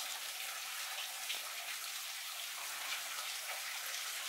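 Meltwater dripping and pattering from a curtain of icicles, over a steady hiss of trickling water.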